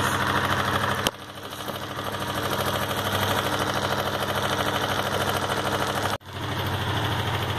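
Sundown MAX 125's single-cylinder pushrod engine running steadily with a fine even rhythm, now with only the ordinary clatter of its pushrod valve train. A sharp click about a second in and a brief dropout near six seconds break the sound.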